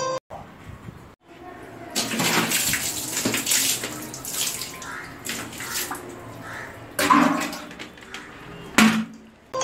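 Toilet brush scrubbing a wet ceramic toilet bowl, water sloshing and splashing in it, with two sudden louder splashes about seven seconds in and again near the end.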